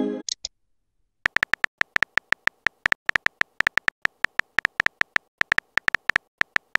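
Phone keyboard typing sound effect: rapid, uneven key clicks, several a second, starting about a second in as a text message is typed out. A short incoming-message tone sounds at the very start.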